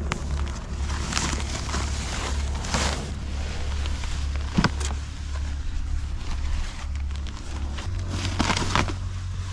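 Clear plastic wrapping rustling and crinkling as it is pulled off a rolled-up inflatable canoe, in swells, the loudest about a second in, near three seconds and near the end. A steady low hum runs underneath.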